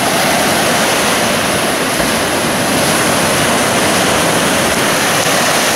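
Sea waves breaking over rocks and washing onto the shore: a steady, loud rushing.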